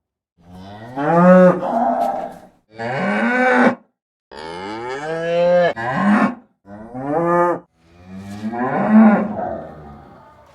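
Cow mooing five times in a row: long pitched calls that bend in pitch, with short pauses between them. The last call is the longest and fades away.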